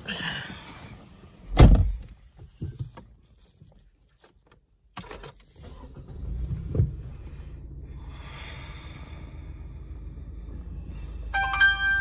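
A car door shutting with a thunk about a second and a half in. From about six seconds a steady low rumble follows, the car's engine started and idling, with a short electronic chime near the end.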